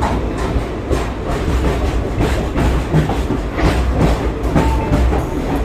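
Passenger train running along the track, a steady rumble with the wheels clicking over the rails.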